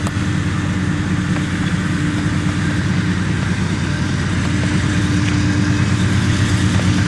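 Diesel-electric freight locomotives running as a CSX train approaches, a steady pulsing engine rumble.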